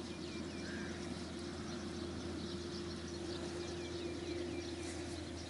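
A small bird's short falling chirps, in two quick runs, early and again about two-thirds through, over a steady unidentified hum.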